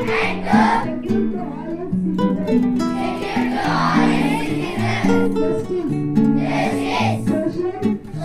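Music: held instrumental notes with singing over them.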